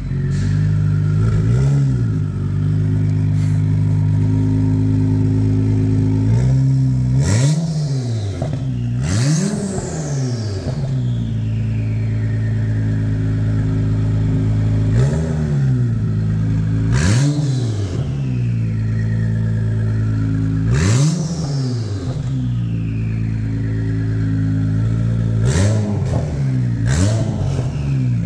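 2020 Acura NSX's twin-turbo 3.5-litre V6 idling through an FI valvetronic exhaust with 200-cell catted downpipes, blipped in short free revs about eight times, each rising and dropping back to idle. A high whistle falls away after several of the revs.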